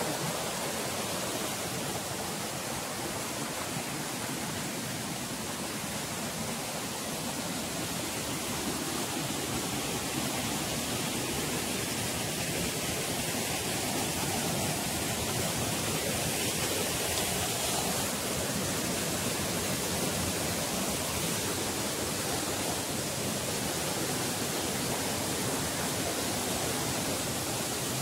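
Forest stream rushing over rocks and small falls: a steady rush of water, a little louder in the second half.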